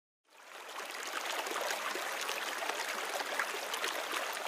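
Flowing water, a babbling stream, fading in over about a second and then running steadily.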